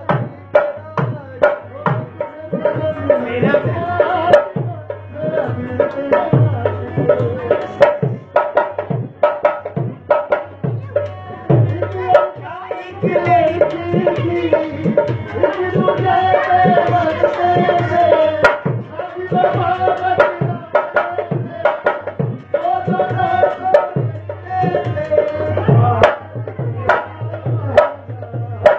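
Hand-played dhol drum beating a steady, fast dance rhythm, with a wavering pitched melody line over it, strongest through the middle.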